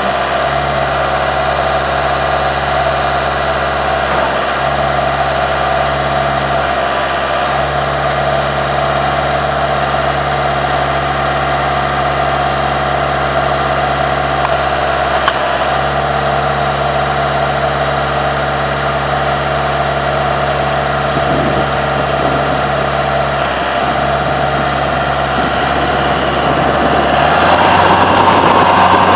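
Vermeer trencher-backhoe's engine running at a steady idle, with a low hum that drops out and comes back several times. Near the end the engine speeds up and gets louder.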